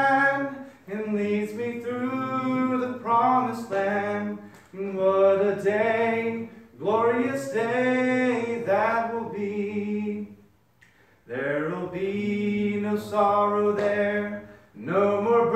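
A man singing a hymn unaccompanied, in phrases of long held notes, with a short break a little past the middle.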